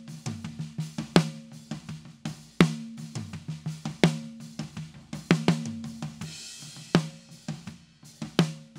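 Snare-top microphone of a drum kit playing a steady groove: six loud snare hits about a second and a half apart, each leaving a ringing tone, with softer hi-hat and kick drum bleed between them and a cymbal wash about two-thirds of the way through. The snare runs through an 1176-style FET compressor plugin whose attack is being turned to its fastest setting.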